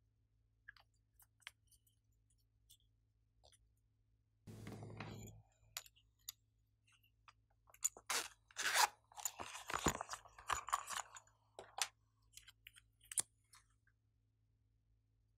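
Small plastic toys being handled: scattered light clicks and taps, a brief dull rustle, then several seconds of loud crackly crunching and clicking as a yellow silicone character case is handled.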